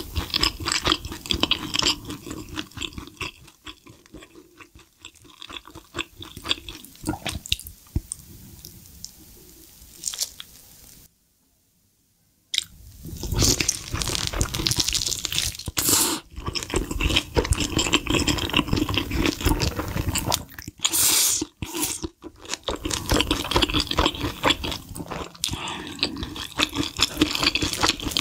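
Close-miked chewing and crunching of spicy sauce-coated fried chicken, a dense run of crackles and wet mouth sounds. The sound drops out completely for about a second and a half around eleven seconds in.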